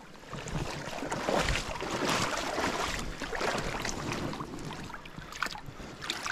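Irregular splashing and sloshing in shallow river water as a dog wades about beside a hooked trout being drawn into the shallows.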